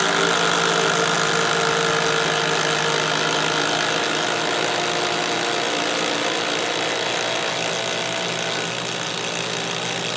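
Cordless brushed 20V impact drivers, a Hart and a HyperTough, hammering steadily as they drive long lag screws into wood.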